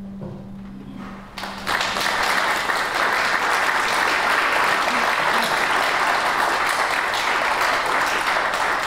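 The last held note of the flute and harp fades out, and about a second and a half in an audience starts applauding, steady clapping that carries on to the end.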